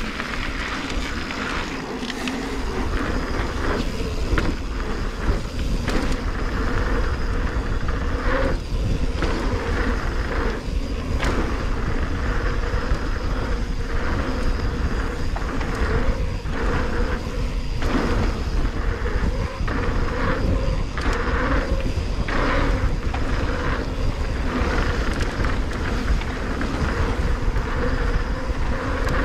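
Mountain bike riding fast down a dirt flow trail: tyres rolling steadily on packed dirt with wind rumbling on the microphone, and scattered short knocks and rattles as the bike goes over bumps.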